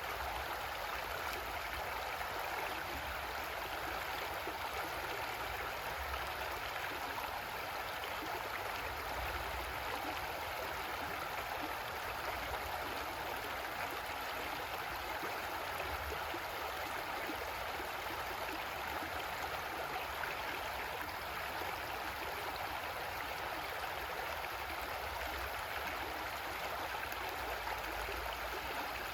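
Creek water running steadily over rocks, a continuous rushing and gurgling.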